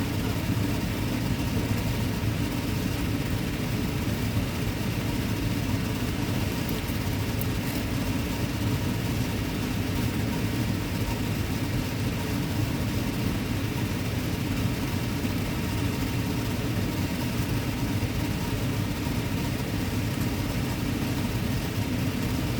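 Electric fan running steadily, a constant low whir with a faint steady hum.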